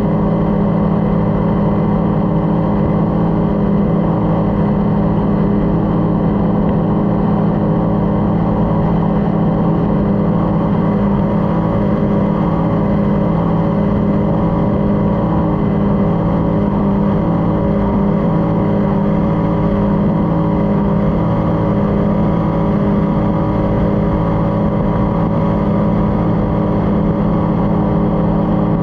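A racing powerboat's engine runs at steady high revs, heard from on board the boat. The pitch holds even throughout, over a constant rush of wind and water.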